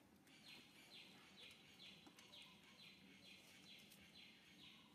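Faint chirping, evenly repeated about twice a second in short buzzy calls, over quiet outdoor background noise.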